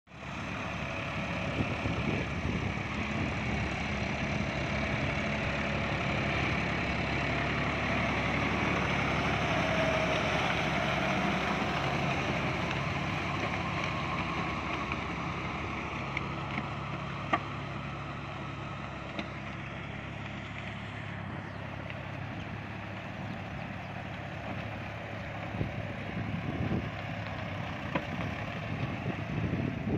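John Deere 5310 tractor's three-cylinder diesel engine running steadily under load while its rotavator churns through flooded paddy mud. The sound eases somewhat in the second half as the tractor draws away, and a single sharp click comes about 17 seconds in.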